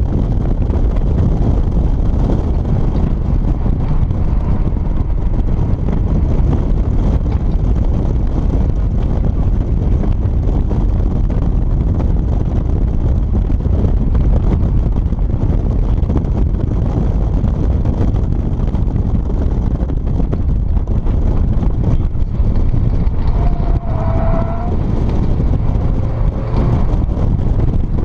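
Wind buffeting the microphone of an open-top car driven hard on a racing circuit, with its engine and tyre noise beneath it. A little before the end a short whine rises and falls.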